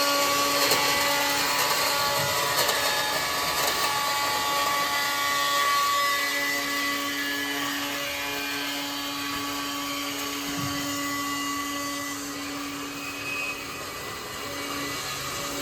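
Steady mechanical whine from a rack beam roll forming machine running: several held motor and gear tones over a hiss, slowly growing fainter.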